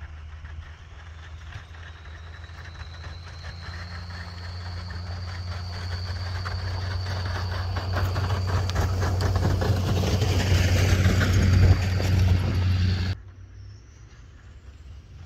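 Ford F-250 pickup with a Snow Dogg VFX95II plow approaching while plowing snow. The engine hum and the rush of snow being pushed grow steadily louder, with a thin high whine over them. The sound cuts off abruptly about 13 seconds in, leaving only a faint outdoor background.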